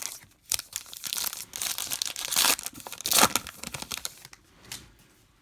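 Plastic baseball card pack wrapper being torn open and crinkled in the hands, in a run of irregular crackling rips that ends just past four seconds in.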